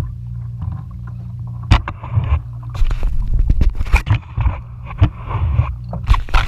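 Water slapping and splashing against a plastic fishing kayak's hull, with irregular knocks and clicks from gear being handled, over a steady low rumble.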